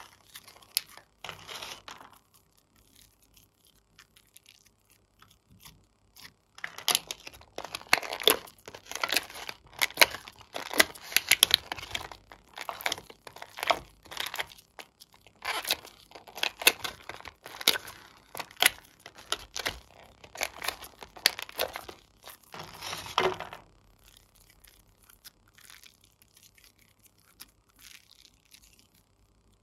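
Thin clear plastic tray crinkling and crackling in rapid clicks as hands press and flex it, for about sixteen seconds.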